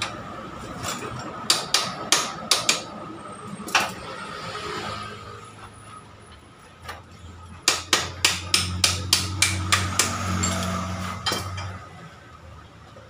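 Sharp metal-on-metal taps during work on a motorcycle engine: a quick run of about five taps a second and a half in, a single tap near four seconds, then about a dozen more from about eight to eleven seconds in. A low steady hum runs under the last run of taps.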